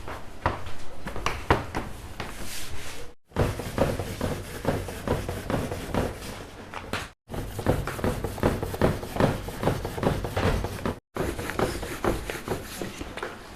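Rapid, irregular knocks and taps of hand food preparation on a work surface, several a second, broken off sharply three times.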